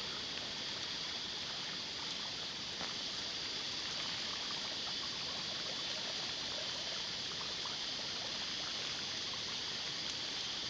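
Small waterfall pouring steadily into a rock pool: an even, unbroken rush of falling water.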